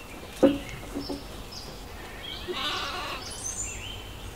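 Lambs bleating in a pen: one short, loud bleat about half a second in, then a few quieter calls.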